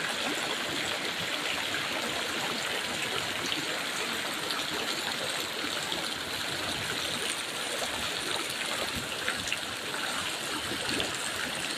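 Floodwater flowing in a steady rush, with small splashy ticks scattered through it.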